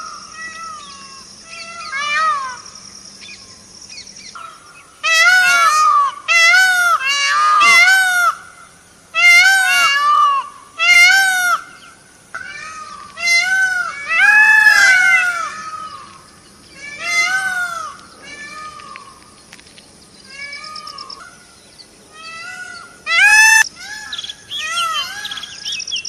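Peacock (Indian peafowl) calling over and over: loud, wailing, cat-like cries, each rising then falling in pitch, some coming in quick runs of two or three.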